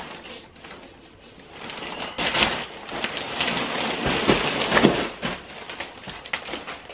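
Plastic mailer bag and plastic-wrapped clothing crinkling and rustling as the package is torn open and a garment pulled out. It is faint for the first second or so, then louder, with a few sharper crackles.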